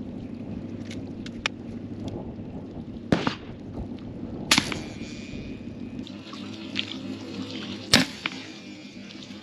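Three sharp suppressed gunshots from a 300 Blackout pistol fitted with a Dead Air Nomad-LT suppressor, about three, four and a half and eight seconds in, over a steady low rumble.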